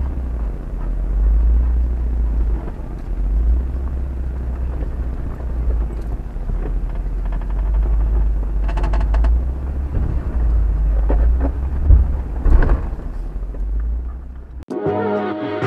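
Jeep Wrangler Unlimited Rubicon crawling over rock at walking pace: a steady low engine and drivetrain rumble with a few brief knocks and rattles. Near the end it cuts off and music starts.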